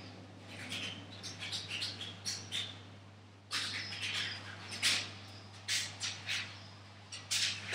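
Paintbrush scrubbing across a large canvas in short, irregular scratchy strokes, with footsteps on a tiled floor, over a steady low hum.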